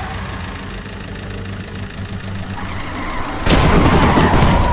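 Cartoon sound effect of a car engine running steadily, then a loud rushing noise about three and a half seconds in as the car passes close by.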